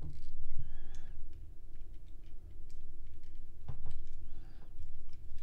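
A few scattered small clicks and taps of a plastic Transformers action figure's parts being handled and moved into place, over a steady low hum.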